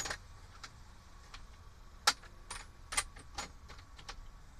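Metal hand tools and sockets clinking and clacking in separate sharp knocks while being rummaged through in search of a socket adapter. The loudest clink comes about two seconds in.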